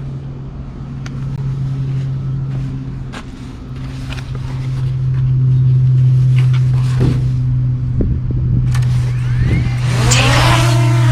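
Quadcopter drone's propellers humming steadily, with a few light clicks. About ten seconds in the rotors change speed and the hum bends up and down in pitch.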